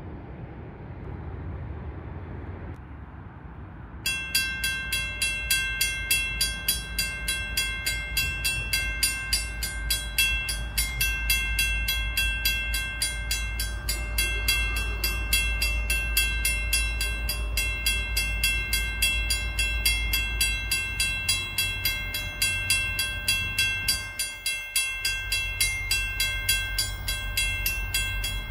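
Railway level-crossing warning bell starting suddenly about four seconds in and ringing on in fast, even strokes while the crossing signals flash, over a steady low rumble.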